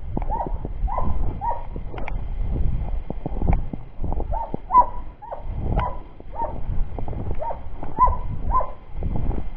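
A scent hound baying on a hare's trail: a string of short, repeated barks, about one or two a second with a brief pause midway, over low wind-like rumble.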